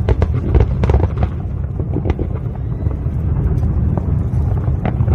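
Fireworks bursting: a series of sharp bangs and crackles, thickest in the first second and again near the end, over a constant low rumble.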